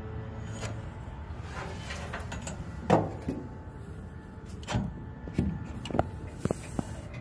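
A handful of short knocks and light clinks, the loudest about three seconds in and the rest coming quicker towards the end, over a steady low hum.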